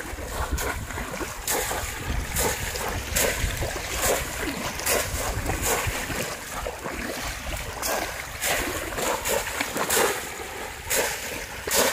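Repeated, irregular water splashing as bamboo polo basket traps are thrust down into shallow pond water again and again, two traps working at once.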